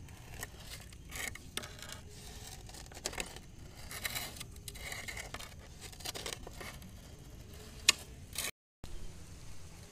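Cooking work: irregular scraping and rustling with light clicks. A sharp click comes near the end, and just after it the sound cuts out for a moment.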